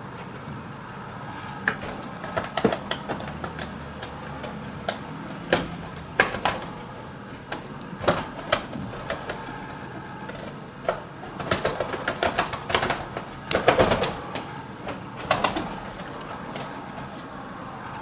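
Wood pigeons slapping each other with their wings in a territorial fight: irregular sharp claps, single or in quick flurries, most dense and loudest from about eleven to fifteen seconds in.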